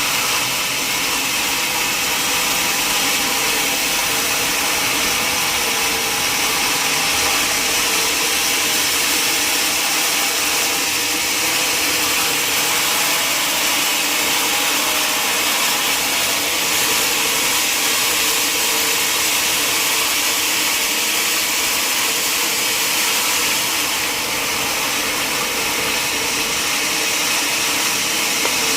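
Sawmill saw running steadily through a log, a continuous even whine-and-hiss of blade in wood with no breaks.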